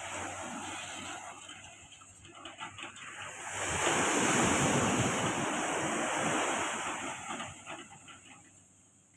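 Sea surf: a wave breaking and washing in, swelling to its loudest about four seconds in and then fading, with wind on the microphone.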